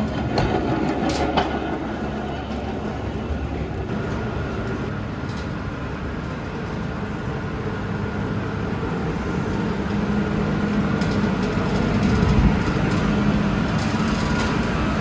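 Steady low rumbling noise with a faint hum, like rolling or running machinery, swelling slightly near the end.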